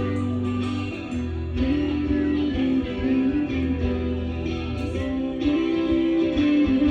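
Live rock band playing an instrumental passage: electric guitar holding and changing melody notes over bass and drums.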